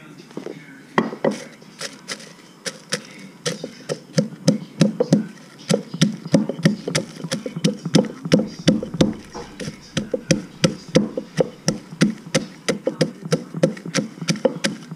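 Wooden pestle pounding frozen chili peppers with salt in a deep mortar, crushing them for a chili dipping sauce. A few scattered strokes at first, then after about three seconds a steady knocking of about three to four strokes a second.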